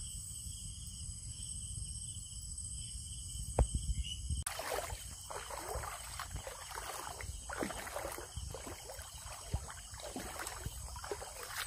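Feet wading through shallow muddy water, with irregular splashes and sloshes. Before that, about four seconds of low rumble with one sharp knock.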